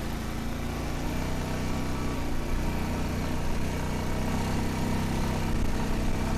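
A vehicle engine running steadily, slowly growing a little louder.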